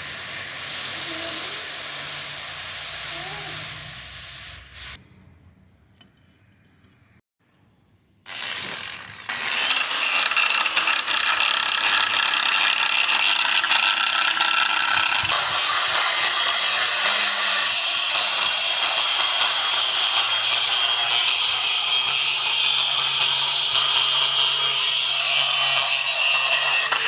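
Steady hissing, then a few seconds of near silence, then a loud steady rasping of a tool working steel in the blacksmith's axe-making.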